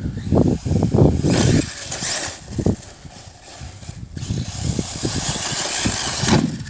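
Arrma Typhon 6S brushless RC buggy driving on grass, its motor and drivetrain whining at high pitch in two surges, the second longer and steady before it cuts off near the end. Low rumbling noise runs through the first two seconds.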